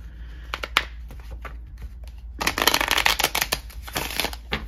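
A deck of paper playing cards being shuffled by hand. There are a few scattered taps as the deck is squared, then a quick, rapid flutter of a riffle about two and a half seconds in, lasting about a second.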